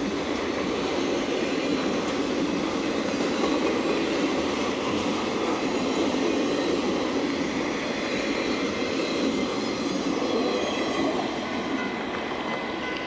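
Freight train's autorack cars rolling past at speed: a steady rumble and rattle of steel wheels on the rails, easing a little near the end as the last cars go by.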